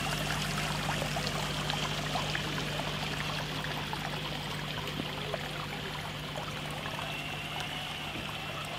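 Water trickling and splashing steadily, with a steady low hum underneath.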